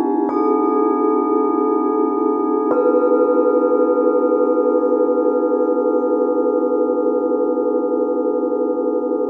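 Hand-forged singing bowls struck twice with a padded mallet, once just after the start and again a little under three seconds in, each strike adding a new tone to those already ringing. The layered tones then ring on with a slow wavering beat, fading slightly near the end.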